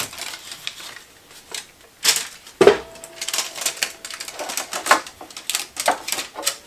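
Aluminium foil tape being pulled off its roll and pressed around the lid of a tin can: an irregular run of crackles and small rips, with one louder crackle and knock about two and a half seconds in.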